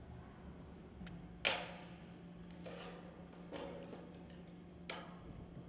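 Sheet-steel barge capping flashing being cut and folded with hand tools: a few sharp metallic clicks and taps, the loudest about a second and a half in and another near five seconds, over a faint steady hum.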